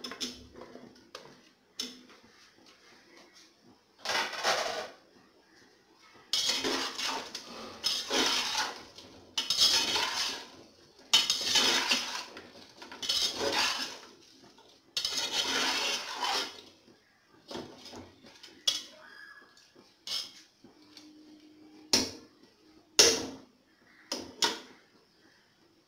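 Metal spoon stirring and scraping potato wedges through chicken and masala in an aluminium pot, in a run of strokes about a second long. Near the end come a few sharp clinks of metal on the pot.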